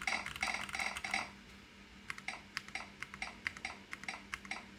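Escape key switch on a Keychron Q1 mechanical keyboard being pressed over and over: a quick cluster of clacks in the first second or so, then steady clicks about four a second. The key intermittently fails to register.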